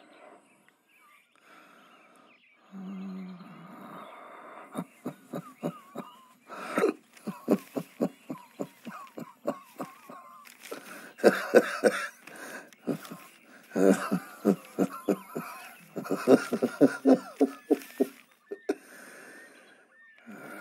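A person wheezing in several runs of rapid, short breathy bursts, about four or five a second, each run lasting a few seconds.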